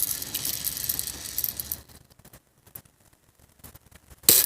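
Metallic rattling and handling of an air rifle for about two seconds, then a single sharp shot from the air rifle near the end.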